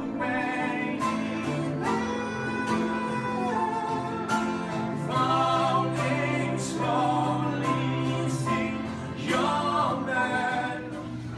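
A singer performing a song to acoustic guitar accompaniment, a small live acoustic concert.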